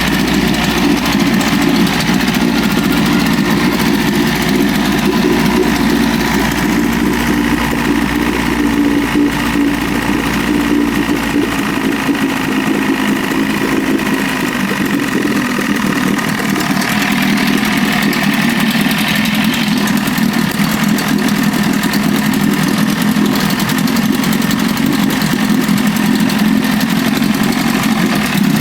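Freshly rebuilt 1981 Evinrude 25 HP two-stroke outboard motor running steadily at low speed during its break-in. The deepest rumble drops away about twelve seconds in.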